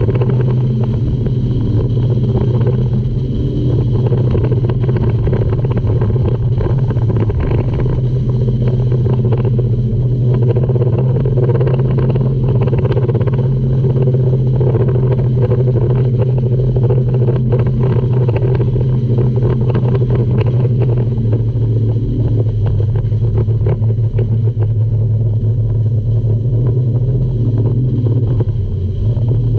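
Speedboat's outboard engine running steadily at speed, a constant loud drone, with water rushing along the hull.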